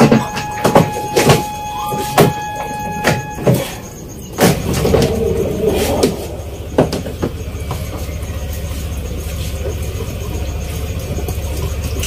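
Plastic knocks and clicks as the top housing of a twin-tub washing machine is pressed and fitted back onto the cabinet, with a steady high tone in the first few seconds. From about four and a half seconds in, a low steady engine-like rumble takes over.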